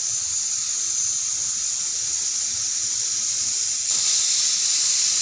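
Hot cooking oil sizzling with fennel seeds in a clay pot: a steady high hiss that grows a little louder about four seconds in as the seeds start to splutter.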